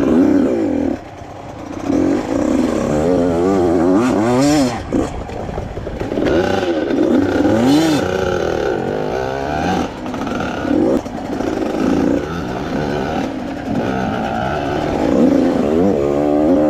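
85cc two-stroke dirt bike engine being ridden, its pitch rising and falling again and again as the throttle is worked, with a brief drop off the throttle about a second in.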